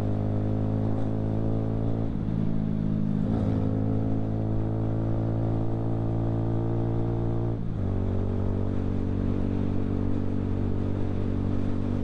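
Keeway Superlight 125 motorcycle engine running at a steady cruise, one even engine note. Briefly broken about two seconds in and again just before eight seconds, where the note shifts.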